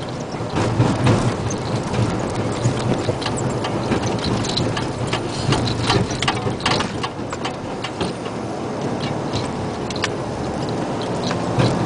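Isuzu Giga dump truck's diesel engine running with a steady low drone as the truck rolls slowly over a rough gravel track, heard from inside the cab. Rapid clicks and rattles from the bumping cab and the gravel under the tyres come thickest in the first half.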